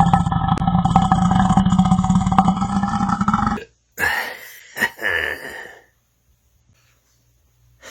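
A man's long, loud belch with a rough, steady low pitch, which stops about three and a half seconds in. A shorter, quieter sound follows about a second later.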